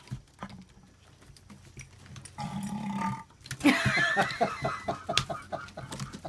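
A Boxer dog belching: a drawn-out low belch, then the loudest burst, followed by a run of short rhythmic pulses, about five a second.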